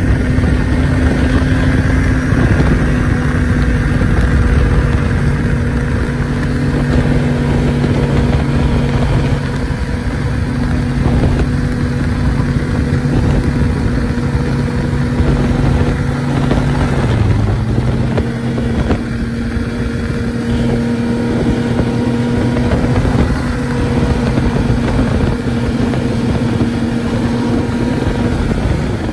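Snowmobile engine running steadily at cruising speed, heard from the rider's seat, with a brief dip in pitch a little past halfway as the throttle eases and picks back up.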